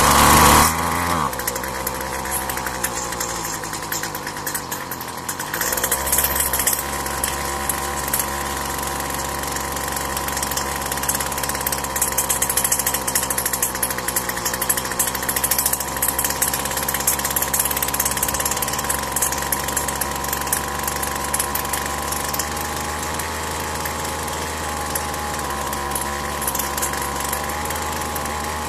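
Two-stroke string trimmer engine on choke, with a brief loud burst as it catches, then a sag in speed about four seconds in as if close to stalling, before it picks up around six seconds and keeps running steadily. It is being test-run after its carburettor's idle and high-speed screws were adjusted.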